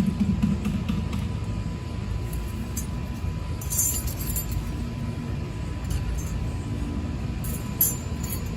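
Light metallic clinks of steel brake-pad hardware clips being handled and pressed into the caliper bracket, a cluster about midway and another near the end, over a steady low rumble.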